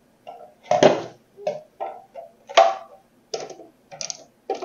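Clear plastic lid being handled and fitted onto a Waring food processor's bowl: a run of irregular plastic knocks and clicks.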